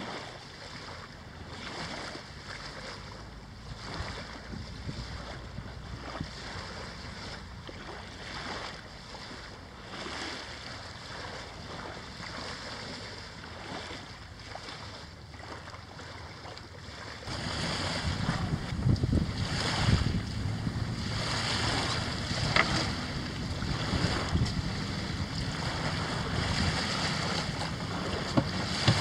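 Wind buffeting the microphone over small waves lapping at a sandy shoreline. About two-thirds of the way through, the wind rumble gets louder and stronger.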